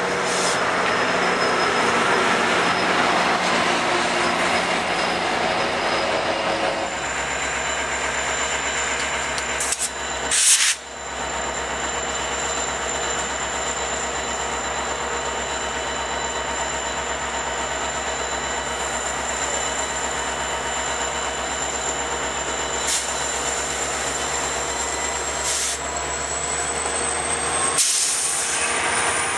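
A GO Transit bilevel commuter train rolling past on the rails, then a GO Transit MP40PH-3C diesel locomotive idling close by: a steady low hum with a thin high whine that rises slightly near the end. A short loud burst comes about ten seconds in, and another near the end.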